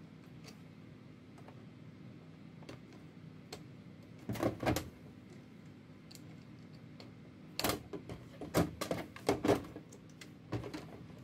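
Plastic clicks and rattles as the control panel of a Xerox WorkCentre 3335/3345 is handled and its ribbon cable and connector are plugged in. The clicks come in a short cluster about four seconds in and in a longer run from about eight seconds on, over a faint steady hum.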